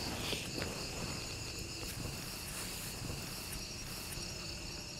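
Nighttime insect chorus: several insects singing at once in a steady, high-pitched drone, with a few faint ticks.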